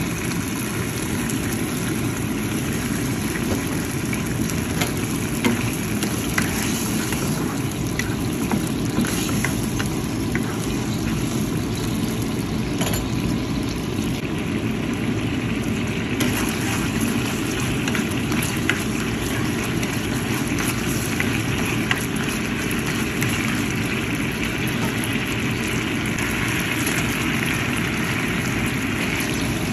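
Teriyaki sauce (soy sauce, sugar and water with garlic and ginger) simmering in a nonstick frying pan, bubbling and spitting with small pops over a steady low rumble. The bubbling hiss grows stronger near the end as the sauce reduces.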